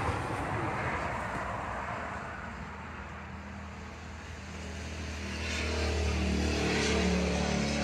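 A car running, with a steady rush of road noise and a low engine hum that grows louder from about five seconds in.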